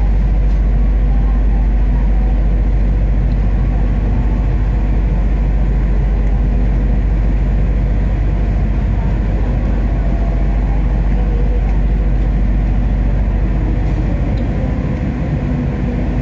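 Steady low rumble of a passenger train carriage running, heard from inside the car, with a few faint clicks.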